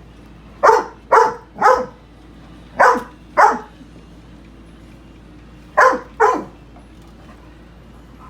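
Labrador retriever barking at a robot vacuum: seven sharp barks in three groups, three quick ones about a second in, two more near the middle, and two near the end.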